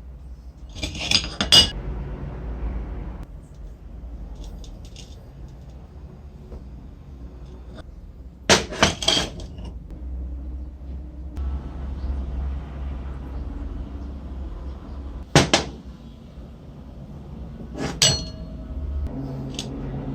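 Hard metal parts clinking and clattering as they are handled and set down, in four separate bursts, over a low steady hum.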